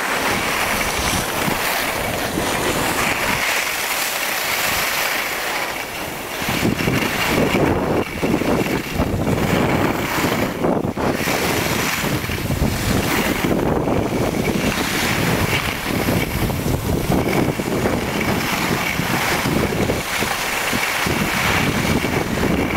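Wind buffeting the camera's microphone while skiing downhill, over the hiss of skis sliding on packed snow. The low rumble of the buffeting grows heavier about six seconds in and keeps going.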